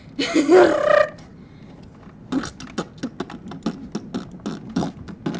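A person's short, breathy vocal noise, then computer keyboard typing: a run of quick key clicks, several a second, starting about two seconds in.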